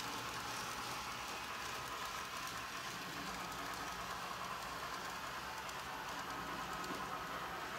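N-scale model passenger train running steadily along Kato Unitrack, the cars' wheels making a steady rolling sound on the rails.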